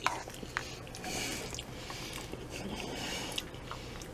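A person chewing a mouthful of soft shepherd's pie (cheesy mashed potato and ground beef), with wet, squishy mouth sounds, after a couple of sharp clicks near the start.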